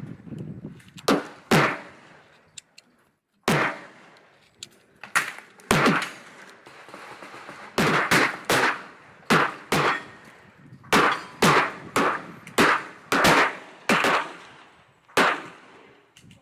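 Kimber 1911 .45 ACP pistol firing about fifteen single shots at an irregular pace, some in quick pairs half a second apart, others a second or two apart, each with a short ringing echo.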